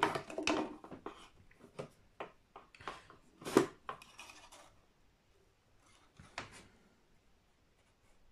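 Irregular small clicks, taps and short scrapes of hands, small tools and wiring being handled on a hollow-body electric guitar, the sharpest click about three and a half seconds in, dying away after about six and a half seconds.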